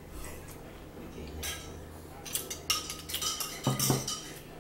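Metal spoon clinking and scraping against a white bowl: a run of light clinks with a brief ring, between about two and four seconds in.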